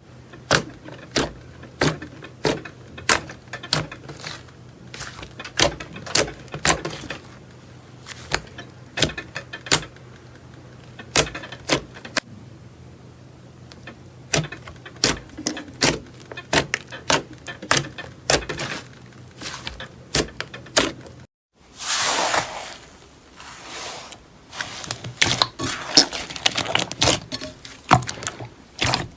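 Slime being pressed and squeezed by hand, making sharp irregular clicks and pops. After a cut about two-thirds of the way through, the slime gives a denser crackling.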